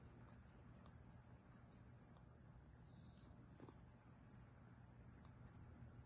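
Near silence: a faint steady high-pitched hiss and a low hum, with a few faint soft clicks from a cat licking its paw.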